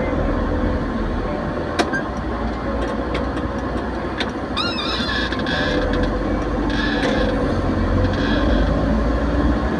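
Motorcycle running at road speed, a steady engine and wind rumble on the microphone, with a short high warbling chirp about halfway through.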